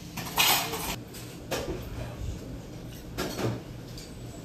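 Dishes and cutlery clattering a few times on a restaurant table, the loudest clatter about half a second in, over a low steady hum.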